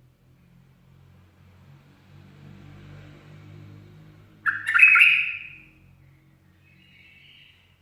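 A bulbul gives one loud, harsh call about halfway through, followed by a fainter short call near the end.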